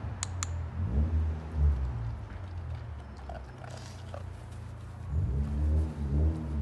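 A black puppy growling in play, in low rumbling bouts about a second in and again near the end, with two sharp clicks just after the start.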